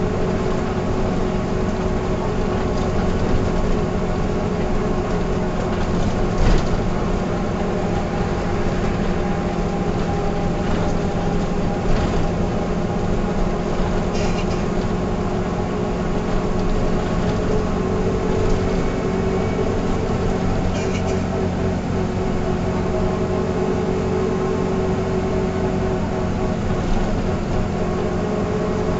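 Mercedes-Benz O305 city bus's diesel engine running steadily, its drone drifting only slightly in pitch. A few brief knocks or rattles are heard, one about six seconds in and others around twelve, fourteen and twenty-one seconds.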